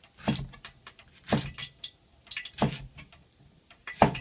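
Kitchen knife chopping through okra pods onto a cutting board: four sharp knocks about a second and a half apart, with lighter clicks in between.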